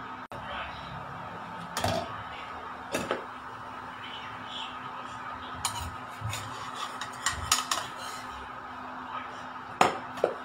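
A spatula scraping and knocking against a small nonstick saucepan as a banana pancake is loosened and flipped, in short sharp clicks with the loudest knock near the end at the flip. Under it runs a steady electric hum from the cooktop.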